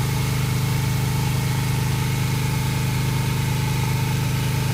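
Tornado ACS vacuum blast cleaner running steadily, a low machine hum under a continuous hiss of air through the blast head pressed against the stone.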